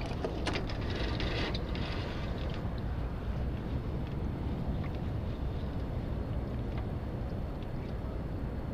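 Steady low wind rumble on the microphone aboard a small junk-rigged trimaran under sail, with a patch of crackling, splash-like noise in the first two seconds or so.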